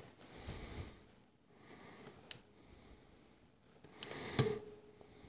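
Faint handling of a torque wrench and socket on the carburetor's main body screws: a single sharp click about two seconds in, then a metallic knock with brief ringing near the end.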